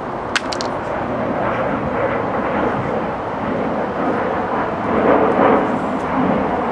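A steady rushing noise, like passing traffic or an aircraft overhead, slowly growing louder, with a sharp click about half a second in.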